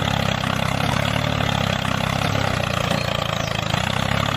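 Tractor engine running steadily at a low, even pitch.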